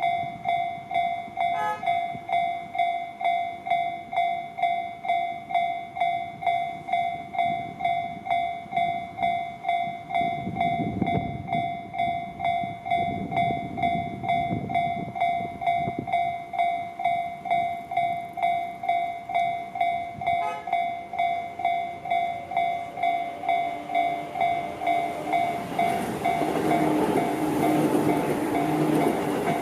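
Japanese level-crossing warning bell ringing steadily at about two dings a second. From about 25 seconds in, a Tobu Tojo Line electric train passes and its rumble and clatter swell beneath the bell.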